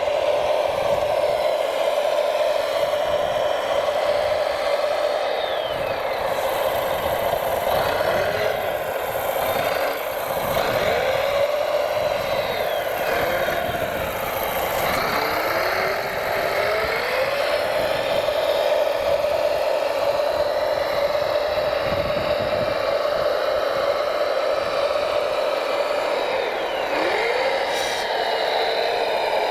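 Drive of a radio-controlled MAZ-537 model truck whining at a steady pitch, the pitch dropping and climbing back several times as the throttle changes, with some rattle.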